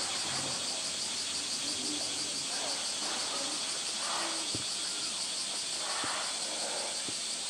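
A steady, high insect drone of summer insects, with water sloshing around a swimming polar bear that swells briefly about four and six seconds in.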